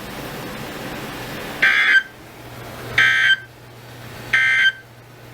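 Emergency Alert System end-of-message data signal: three short bursts of two-tone digital screech, each under half a second and about 1.3 s apart, marking the end of a flash flood warning broadcast. A steady low hum runs underneath.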